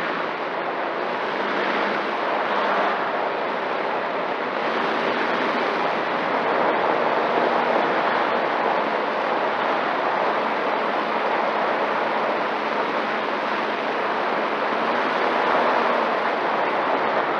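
Steady rushing noise that swells and eases slightly, with a faint steady hum underneath.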